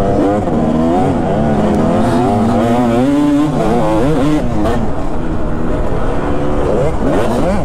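2005 Kawasaki KX250's 250 cc single-cylinder two-stroke engine under way on a motocross track, its pitch rising and falling again and again as the throttle is opened and closed, with a longer climb about three seconds in and again near the end.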